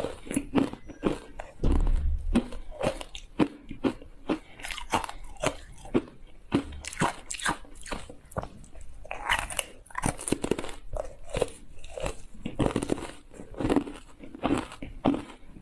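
Ice cubes coated in matcha powder being bitten and chewed: a quick, irregular run of sharp crunching cracks as the ice breaks between the teeth.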